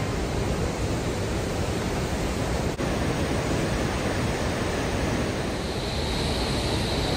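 Fast mountain river rushing over boulders: a steady rush of whitewater.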